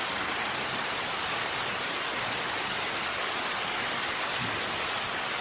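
Steady, even hiss with no speech.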